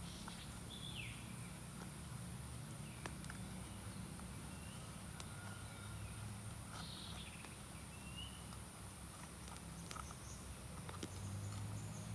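Forest ambience: a steady high insect drone, with a few short bird calls, some falling in pitch, and scattered light clicks.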